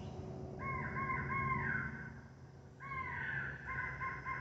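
Electronic crow call playing recorded crow caws: a quick run of about four caws, then a second run starting about halfway through.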